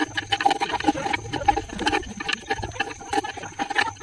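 Rubber surround of an 18-inch speaker being pried and peeled off its metal basket, the glue, softened with petrol, tearing loose in irregular crackles and scrapes.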